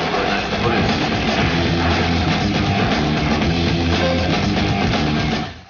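Loud rock music with distorted electric guitar and drums, cutting off abruptly near the end.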